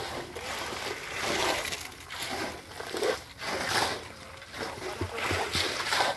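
Wet cement slurry splashing and sloshing as it is poured from buckets and spread over fresh concrete, in a series of short splashes.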